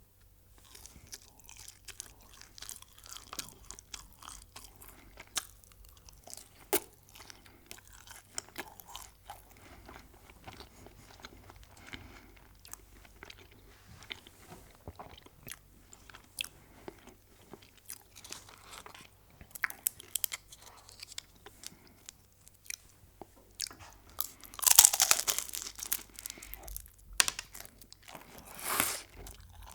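Close-miked chewing and crunching of crisp food, with many small crackles throughout and two louder, longer crunches near the end.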